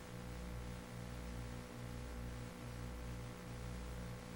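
A steady low electrical hum with even hiss, with no distinct sounds standing out.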